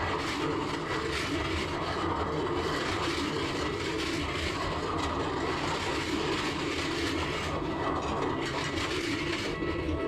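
Steady rumble and rail noise of a train running on its track, even in level throughout.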